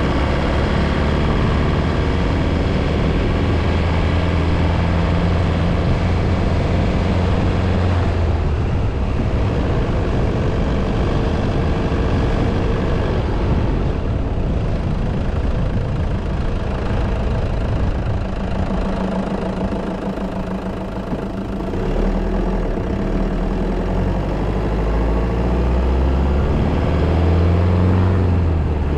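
Engine of a vehicle running as it drives slowly along a road; it eases off about two-thirds of the way through, then pulls harder again near the end.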